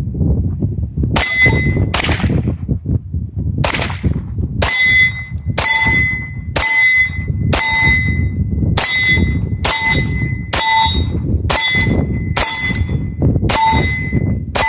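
SIG P226 Legion pistol firing a string of shots, spaced about half a second to a second apart. Most shots are followed by the brief ring of a steel target being hit. Wind rumbles on the microphone between shots.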